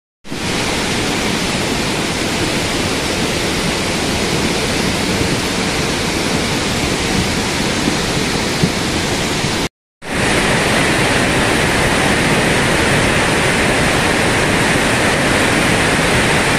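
Steady hiss of a heavy downpour and rushing runoff water, with a short silent gap about ten seconds in, after which the hiss is a little brighter.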